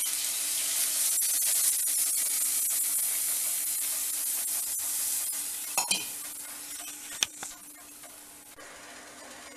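Tamarind water hitting hot gingelly oil in a clay pot of frying turkey berries, shallots and garlic: a loud sizzling hiss for about five seconds that then dies down as the liquid cools the oil. A wooden spatula clicks against the pot throughout, with a couple of sharper knocks near the end.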